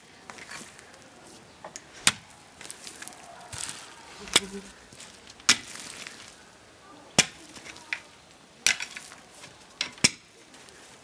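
A long-handled garden hoe chopping into compacted earth to loosen the soil. Its blade strikes sharply every second or two.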